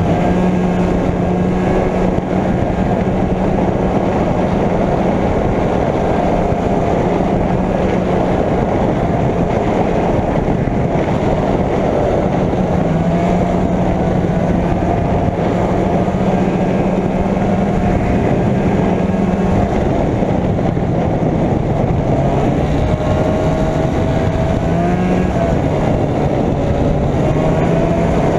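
Arctic Cat Jag 440 Deluxe snowmobile's two-stroke engine running steadily under way, its pitch wavering a little with the throttle, over a loud rushing noise.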